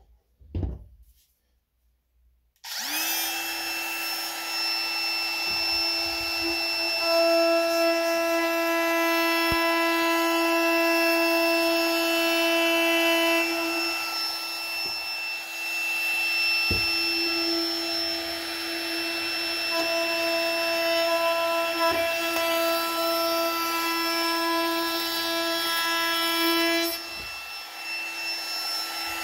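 DeWalt compact router starting up about three seconds in, after a few light knocks, then running with a steady high-pitched motor whine; the sound drops a little in level near the end.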